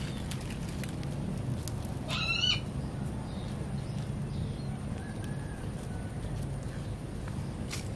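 A kitten gives one short, high, wavering meow about two seconds in, over a steady low background hum.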